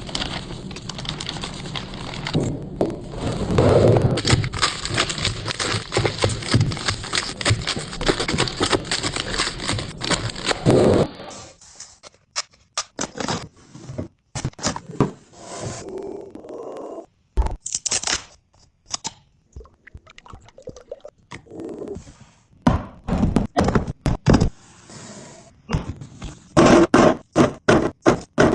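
Kitchen items and containers being handled during a kitchen and fridge restock: a dense stretch of rustling and clattering for about the first eleven seconds, then a run of separate knocks and thunks as things are set down.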